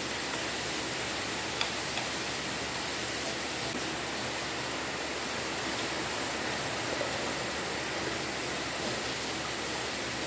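Steady, even hiss of background noise, with a couple of faint clicks about two seconds in.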